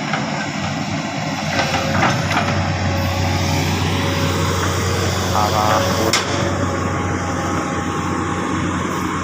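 Engine of a heavy machine, driven by an operator, running steadily, with a sharp click about six seconds in.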